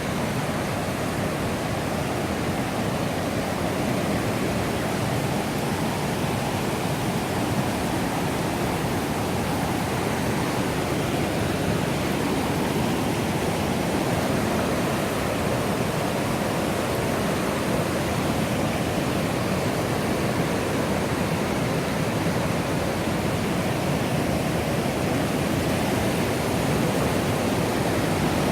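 Millstone River water rushing: a steady, even roar of flowing water with no breaks.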